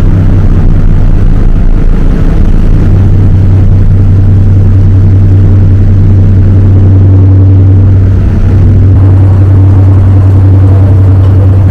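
Ferry's engines droning under way: a loud, steady low hum, with wind buffeting the microphone on the open deck.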